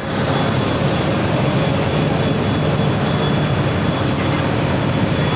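Loud, steady jet-turbine roar of aircraft on an airport apron, with a thin steady whine running above it.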